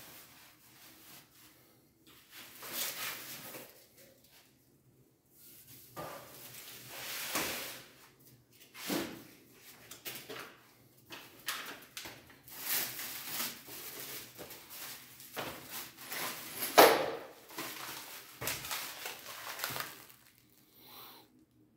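Plastic packaging film rustling and crinkling in irregular bursts as it is pulled off door frame parts and crumpled by hand, with light knocks of the parts on cardboard and one sharper knock about 17 seconds in.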